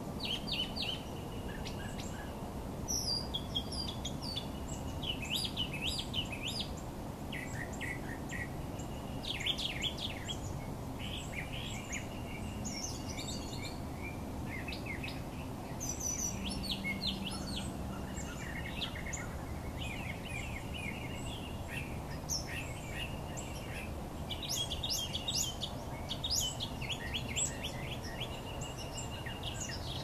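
Several different small birds chirping and singing in a mixed early-morning chorus, with short calls and trills overlapping one another, over a steady low background rumble.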